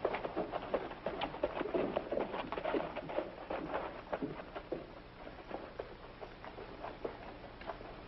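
Horse hoofbeats as a rider walks a horse up and halts: quick, irregular clops for about the first four seconds, then fewer, scattered ones.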